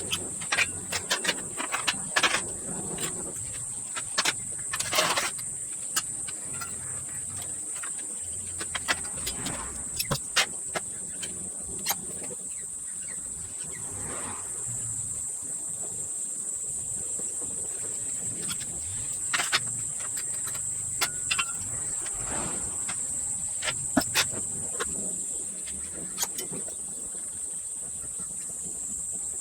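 Steady high-pitched insect chirring, with scattered sharp clicks and knocks throughout.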